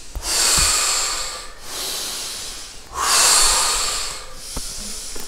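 Deep, audible breathing in a slow even rhythm: long breaths in and out, each about a second and a half, making two full breath cycles. This is the deep-breathing phase of a breath-hold exercise.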